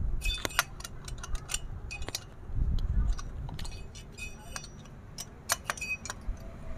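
Metal hand tools clinking and clicking against the STIHL 651 chainsaw's cylinder screws as they are tightened hard, in irregular sharp metallic ticks with brief ringing. There is a dull bump of handling near the middle.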